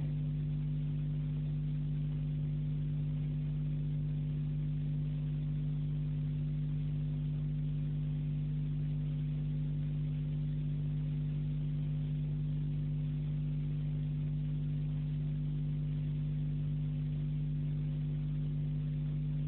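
A steady low hum made of a couple of fixed tones that hold unchanged in pitch and level throughout.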